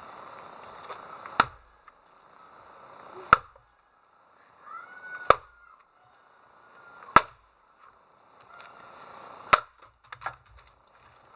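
Axe chopping wood: five sharp, loud blows at a steady pace of about one every two seconds.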